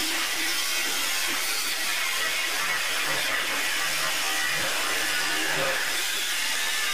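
Angle grinder cutting into 3/16-inch steel plate, a steady hiss of the wheel on the metal.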